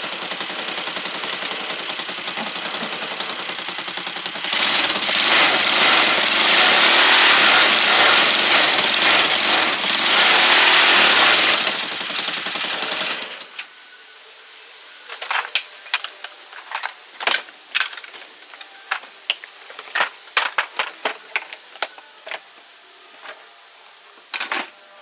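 A machine running with a fast rattle, louder and hissing from about four to twelve seconds in, then stopping about thirteen seconds in. After that come scattered light clicks and taps.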